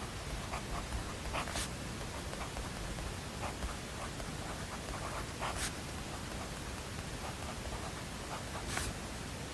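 Steady white-noise hiss with scattered short scratches of writing on paper over it, and three louder brief swishes spread through it.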